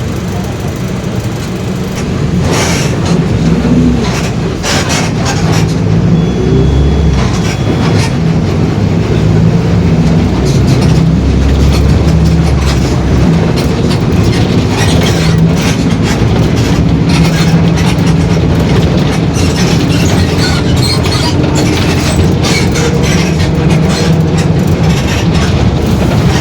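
Inside a Mercedes-Benz OF-1721 BlueTec 5 city bus on the move: the diesel engine running under load with the drive axle's differential growling, a fault this bus is known for. Over it, the body and fittings rattle and knock continuously on the road, and the whole sound gets louder about two seconds in.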